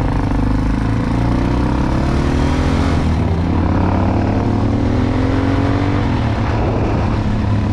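Motorcycle engine pulling away under acceleration, its pitch rising steadily and then dropping about six seconds in, as at an upshift.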